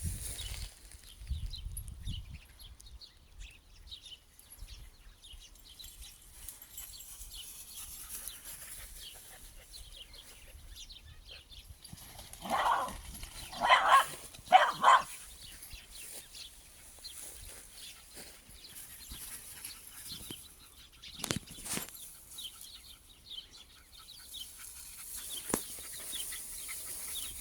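Jagdterrier barking three times in quick succession, about halfway through.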